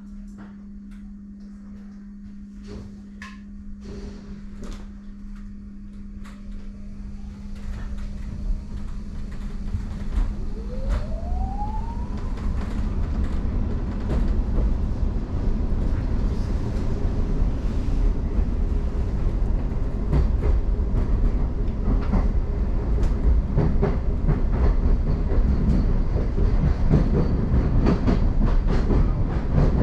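Class 717 electric train pulling away, heard from inside the carriage: a steady hum while it stands, then the traction motors' whine rises in pitch about ten seconds in and levels off. The rumble of wheels on rail grows louder with scattered clicks as it speeds up and runs into the tunnel.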